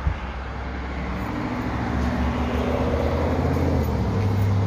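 A motor vehicle's engine running with a steady low rumble, growing slowly louder.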